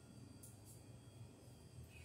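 Near silence: a faint low hum, with two faint clicks about half a second in as a Kobalt hand PVC pipe cutter closes on PVC conduit.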